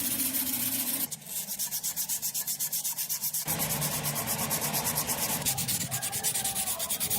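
Rapid back-and-forth hand abrading of a small metal part of a die-cast model car, about six scraping strokes a second. The stroke changes character about a second in and again about three and a half seconds in.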